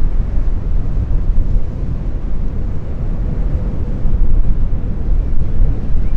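Wind buffeting an outdoor microphone: a loud, uneven low rumble.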